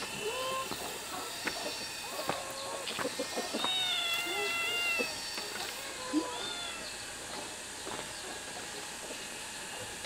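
Cat meowing again and again in short bending calls, with one longer drawn-out meow about four seconds in, over a faint background hiss.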